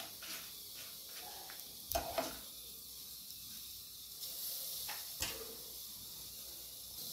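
Chana dal, urad dal, dried red chillies and curry leaves frying in coconut oil in a small pan: a faint, steady sizzle, with a couple of sharp clicks at about two and five seconds in. The spices are being roasted for a ground masala.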